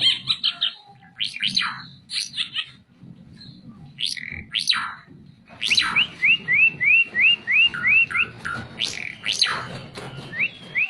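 An 'ara mata merah' songbird singing. A rapid trill opens the song, then come sweeping whistles, and from about halfway through a rhythmic run of short rising notes, about four a second.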